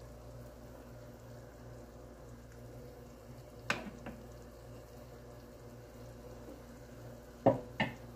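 Chicken ginseng soup (samgyetang) simmering in a pot, a steady quiet bubbling with a low hum under it. A metal ladle skimming off the foam clinks sharply against the pot once about halfway through and twice in quick succession near the end.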